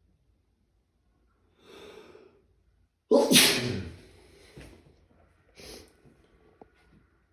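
A person sneezing from hay-fever allergies: a drawn-in breath, then one loud, sudden sneeze about three seconds in, trailing off into smaller breath sounds.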